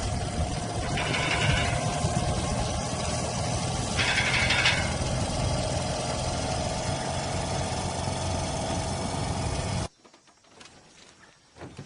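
Motorcycle engine running steadily, with two short higher-pitched rasps over it about one and four seconds in, then cutting off abruptly near the end.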